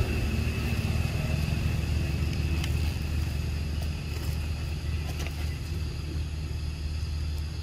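Steady low rumble of a running motor, with a thin, high steady whine that fades about halfway through and a few faint clicks.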